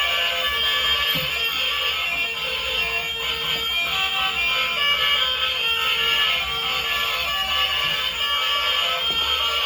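A tinny electronic melody of short, shrill beeping notes that keeps going without a break.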